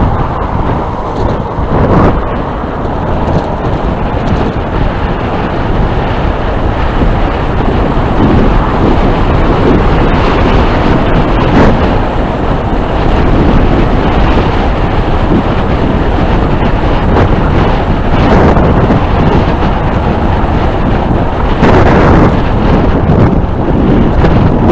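Loud, steady wind rush on the microphone of a camera riding along on an electric bicycle, with a few brief louder surges.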